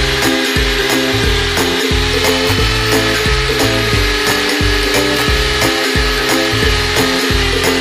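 Background music with a steady beat, mixed with an electric drill spinning a polishing wheel against a motorcycle's aluminium engine case.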